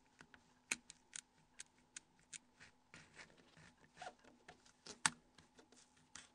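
Faint, irregular small clicks and taps of plastic mobile-phone housing parts and small tools being handled during disassembly, with two sharper clicks, one near the start and one about five seconds in.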